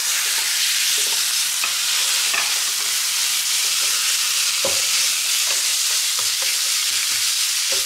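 Raw ground pork sizzling in hot oil with minced shallots in a nonstick frying pan, steady and loud. A wooden spatula scrapes across the pan every half second to a second as the meat is stirred and broken up.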